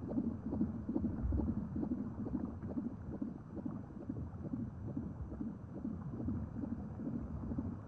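Low, muffled rumbling noise that swells and fades irregularly, with no clear rhythm and nothing high-pitched.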